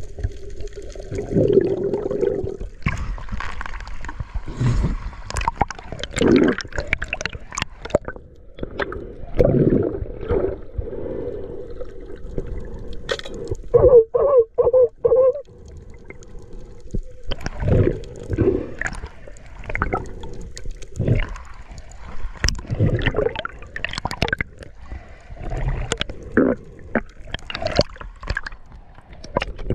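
Water sloshing and gurgling against the camera, with irregular knocks and splashes over a steady hum. About halfway through comes a quick run of four pulsing tones.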